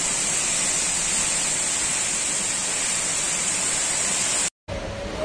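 Torrential tropical-storm rain and wind, a steady, even, loud rush of downpour. It cuts off abruptly near the end, giving way to quieter wind noise with a thin wavering whistle.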